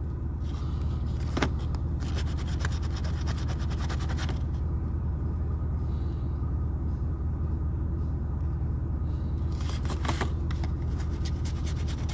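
A coin scratching the coating off a scratch-off lottery ticket in quick rasping strokes, in two spells: for a few seconds near the start and again near the end. A steady low rumble runs underneath.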